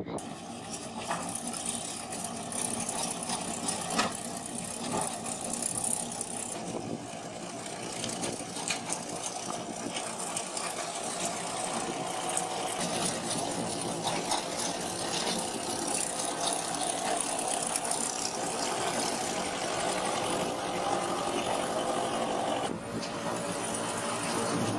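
Tractor engines running steadily under load, with the clatter of peat-turf machinery at work: a sod-peat extruder, then a peat harvester lifting dried sods. The sound changes near the end where one clip gives way to the next.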